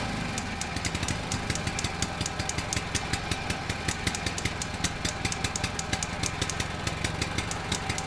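An engine running steadily, with a rapid, uneven clatter of sharp ticks over a low hum.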